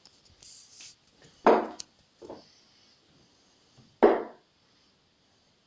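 Darts thudding into a dartboard: two sharp knocks about two and a half seconds apart, with a fainter knock shortly after the first.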